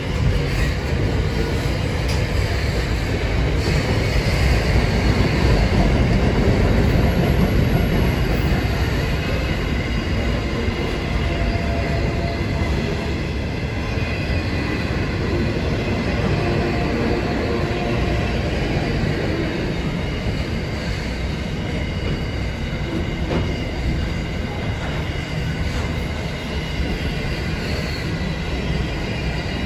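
Container wagons of a long freight train rolling past on jointed track, a steady rumble of steel wheels on rail with a faint high wheel squeal. The noise is loudest about six seconds in and eases a little as the last wagons pass.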